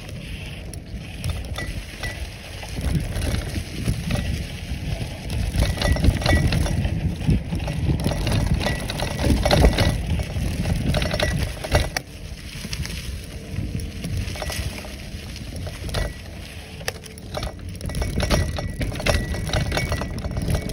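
Bicycle ridden along a leaf-strewn sandy trail: the knobby tyre rolling and crunching over dry leaves while the bike rattles and clinks over bumps, with a steady low rumble underneath.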